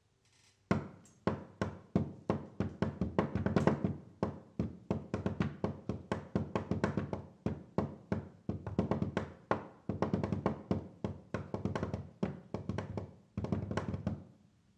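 Out-of-tune upright piano played in fast, short, detached notes and chords, several strikes a second. It breaks off briefly near the end, then plays a last quick cluster.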